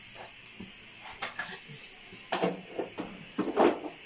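Kitchen utensils clattering and knocking in short bursts, three times, the last the loudest near the end, as salt is added to the earthenware cooking pot.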